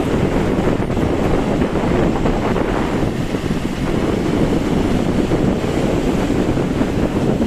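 Strong wind buffeting the microphone in a steady low rumble, with sea surf washing behind it.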